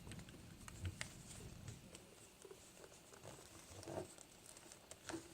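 Faint handling noise from a replacement ear pad being stretched and worked around a headphone earcup: scattered soft clicks and rustles, a little louder about a second in and again near four seconds.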